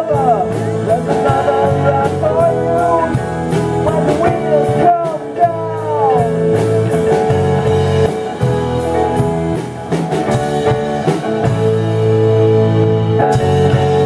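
Live rock band playing: drum kit, electric bass, electric guitar through amplifiers, and keyboard. Lead lines bend in pitch through roughly the first half.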